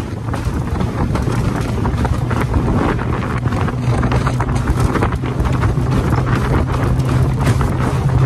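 Outboard motor of a small aluminium boat running steadily while under way, with heavy wind buffeting the microphone.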